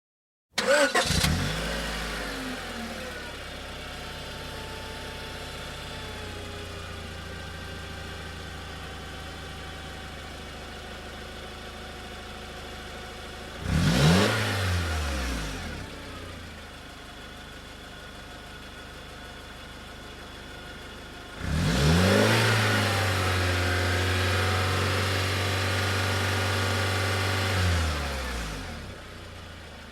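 Car engine starting, then idling steadily. It is blipped once briefly about halfway through, then revved up and held at a higher steady speed for several seconds before dropping back to idle near the end.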